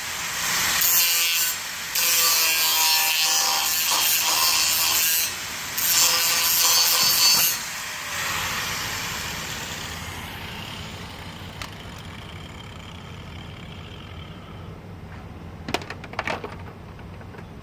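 Angle grinder with a metal cut-off disc cutting metal in a few short passes, a harsh high whine, then winding down after about eight seconds. A couple of light clicks follow near the end.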